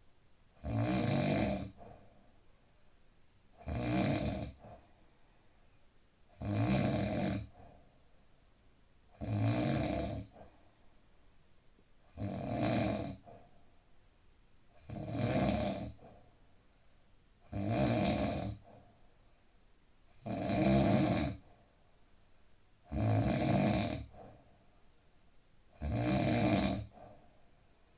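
A man snoring: a regular run of rough snores, each about a second long, one about every three seconds, with quiet breathing between them.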